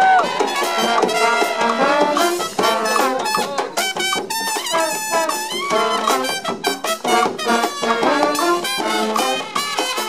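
Brass street band playing a lively up-tempo passage, trumpets and trombones over sousaphone, bass drum and snare.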